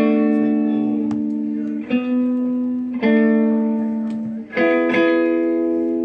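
Guitar chords struck one at a time and left to ring out, a new chord about every one to two seconds, each fading slowly.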